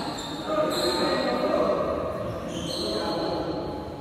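Badminton hall in play: shuttlecocks being struck by rackets, shoes squeaking on the court floor, and players' voices echoing around the large hall, with short high squeaks coming and going.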